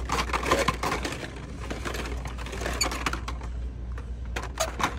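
Hot Wheels blister-pack cards clacking and rattling as a hand flips and slides them along metal store display pegs. It is a quick run of clicks, heaviest in the first second and a half and again near the end.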